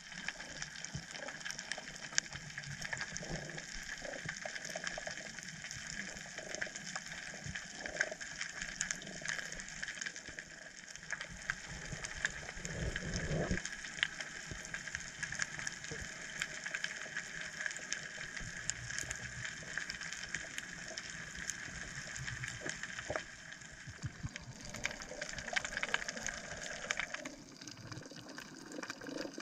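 Underwater coral-reef ambience: a dense, steady crackle of many tiny clicks, like rain, over a hiss, with low swishes of water movement that swell about halfway through.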